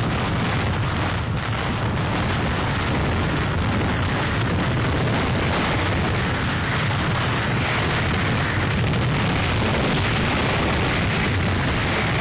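Hurricane-force wind blasting against the microphone: a dense, steady rushing noise with no letup.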